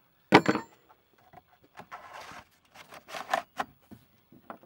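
Chainsaw handled on a pickup tailgate: a sharp metal clink, then irregular scraping and knocking as the plastic bar scabbard is slid over the bar and chain.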